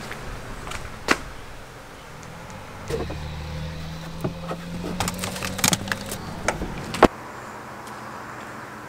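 Fishing rods and gear being loaded into a car, with clicks and knocks as they are set down. A steady low motor hum runs for about four seconds, ending with one loud sharp knock about seven seconds in.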